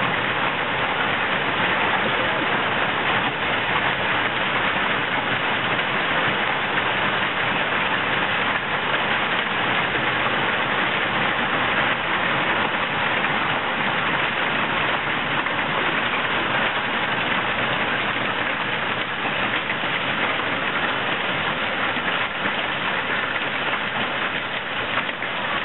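Heavy hail, marble-sized to bigger than golf balls, pelting down onto paving, lawn and a swimming pool in a dense, steady clatter with no let-up.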